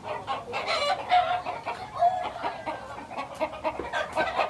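Caged chickens clucking, several birds calling over one another in quick, overlapping calls.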